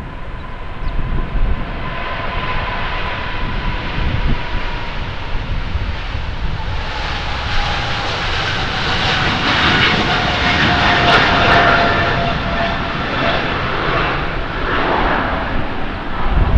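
United Airlines Boeing 777's twin jet engines at takeoff power as it rolls past and lifts off. A high engine whine slowly drops in pitch while the jet noise swells to its loudest, rough and crackling, about halfway through, then eases slightly.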